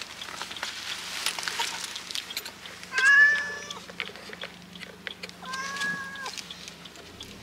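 A distressed cat shut in a mesh carrier bag meows twice, loudly about three seconds in and again more faintly near the end, protesting the car trip. Clicks and rustling come between the calls.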